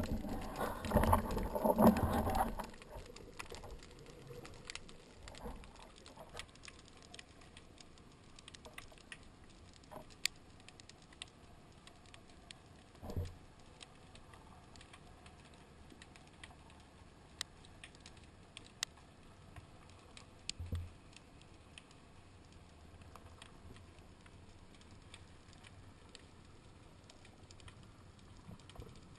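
Underwater sea ambience: a faint continuous crackle with scattered sharp clicks, after a louder churning rush of water in the first two or three seconds. A couple of soft thuds come about 13 and 21 seconds in.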